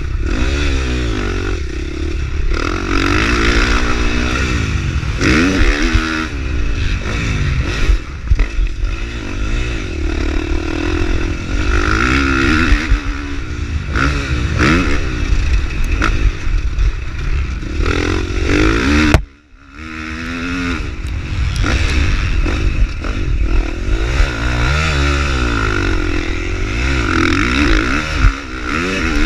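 A 450cc four-stroke motocross bike ridden hard on a dirt track, its engine revving up and dropping back again and again. About two-thirds of the way through, the sound drops almost to nothing for about half a second.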